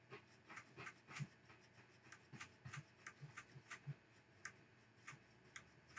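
Faint, irregular scratchy crackles and pops from a 1965 Fender Deluxe Reverb's speaker as its pots are turned back and forth. The scratchiness comes from a little dust still left in the reverb pot, which is working its way out.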